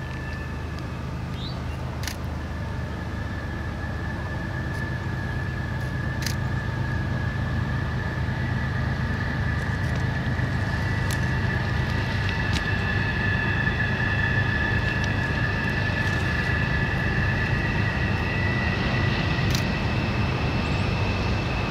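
Diesel locomotives of an approaching train running under power, a low engine drone with a steady high whine above it, growing slowly louder as the train nears.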